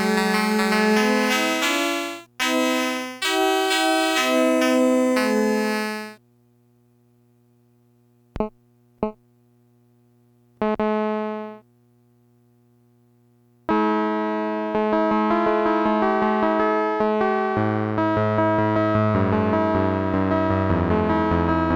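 Casio Casiotone 101 keyboard playing chords and a melody through an analog colour line processor. It breaks off about six seconds in; two short notes and a held chord sound in the gap. Playing resumes about fourteen seconds in, with a bass line joining a few seconds later.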